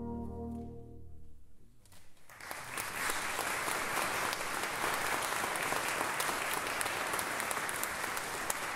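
A brass band's final held chord fades away about a second and a half in. After a brief hush, the audience breaks into steady applause.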